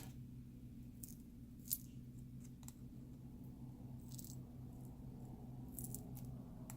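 Faint scattered clicks and scrapes of a thin metal opening tool prying under a phone's heat-softened, glued back cover as the adhesive peels away, over a low steady hum.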